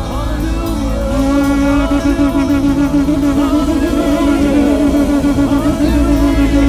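Live gospel praise music from a church worship band, with one long held note starting about a second in and sustained through the rest.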